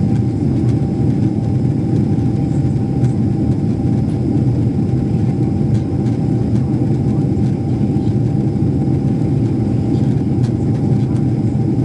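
Airliner cabin noise in flight: a steady low rumble of jet engines and airflow, with a thin steady tone above it.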